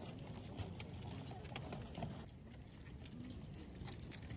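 Faint outdoor ambience: a steady low rumble with faint distant voices.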